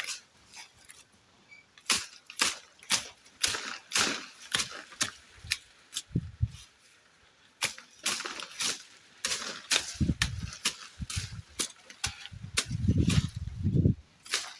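A hand tool chopping at grass and soil to clear ground for planting: repeated sharp strikes, irregular, about one to two a second, with a few heavier low thuds.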